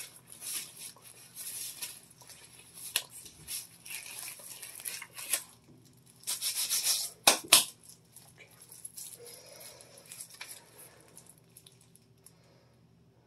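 Black disposable gloves being pulled onto the hands: rustling and rubbing with a few sharp snaps, one about three seconds in and two close together about seven and a half seconds in.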